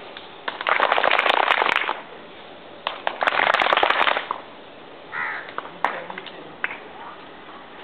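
A group of children clapping, twice in short bursts of about a second each, with a brief shout between.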